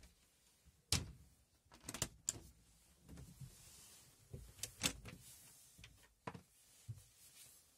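Wooden motorhome cupboard doors being opened and shut by hand: several sharp clicks and knocks from the doors and their push-button latches.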